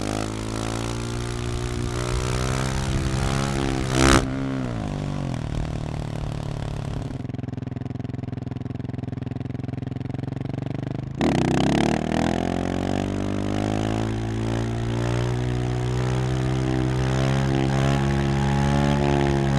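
Husqvarna 701's big single-cylinder engine through a Remus exhaust, under throttle during wheelies. The revs drop away after a brief loud burst about four seconds in. After an abrupt change a little past the middle, the engine note dips and then climbs steadily.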